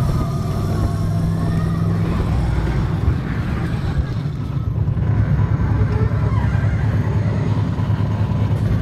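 A Test Track ride vehicle running along its track through the brake-test section, with a steady low rumble of drive and wheels.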